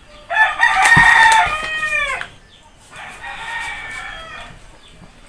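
Rooster crowing: one long, loud crow that falls in pitch at the end, followed a second later by a second, fainter crow.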